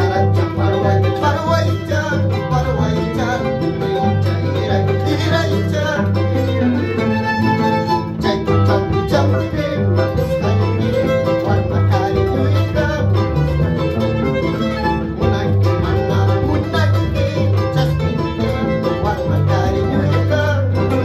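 Andean harp and violin playing a tune together: the harp plucks a steady bass line under the violin's bowed melody.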